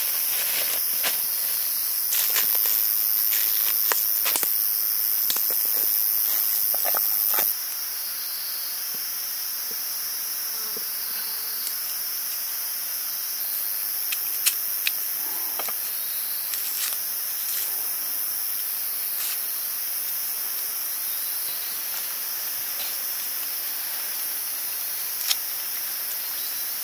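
Steady, high-pitched chirring of insects, with scattered light clicks and knocks. The sound drops abruptly in level about seven and a half seconds in.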